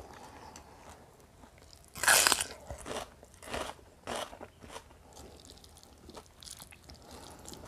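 Bite into a chunk of raw bitter melon close to a clip-on microphone. The loudest crunch comes about two seconds in, followed by crunchy chewing about every half second that fades out.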